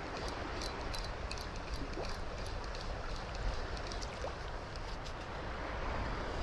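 Steady outdoor noise of wind buffeting the microphone over water, with faint irregular high-pitched ticks several times a second.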